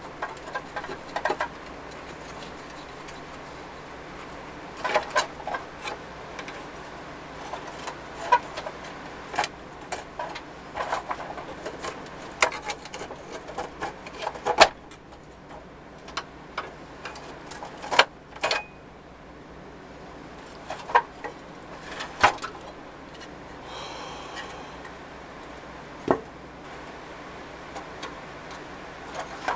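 Irregular clicks, clinks and scrapes of a screwdriver and fingers on the rusty pressed-steel parts of a 1970s Tonka toy forklift as it is worked apart, with a low steady hum underneath.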